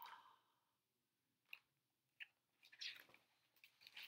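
Near silence: room tone with three faint, short clicks.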